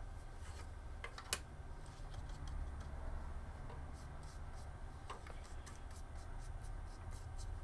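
Faint scratchy brushing and light clicks as a small brush dabs acetone onto 3D-printed plastic parts and the pieces are handled, with one sharper click about a second in, over a low steady hum.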